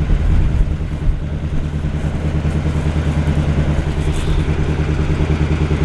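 Chevrolet 350 small-block V8 idling steadily after its first start in about 13 years, a low even engine hum with no revving.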